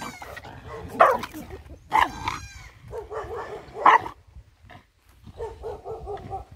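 Muzzled Belgian Malinois yelping and crying in sharp, high-pitched bursts about a second in, at two seconds and near four seconds, then whimpering in quieter quick pulses: the dog's reaction to being held for a veterinary injection.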